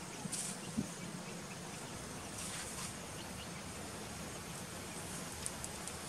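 Honey bees buzzing steadily around an open hive, a low even hum, with a couple of brief scrapes as the wooden hive frame is handled.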